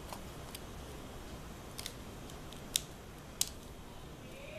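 A few small, sharp plastic clicks as a laptop keyboard's flat ribbon cable is handled and pushed into its connector latch on the motherboard, over a low steady hiss. The two loudest clicks come about three and three and a half seconds in.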